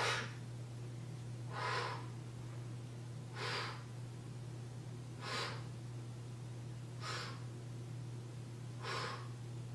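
A woman's sharp exhalations, one about every two seconds, breathing out as she lifts a pair of dumbbells on each repetition. A faint steady low hum runs underneath.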